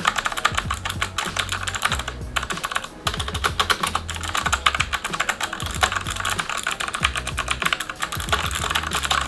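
Fast typing on a Fantech MK884 Optiluxs keyboard's orange optical switches: a dense run of quick keystrokes, slightly clicky but not as noisy as blue switches, with short pauses about two and three seconds in.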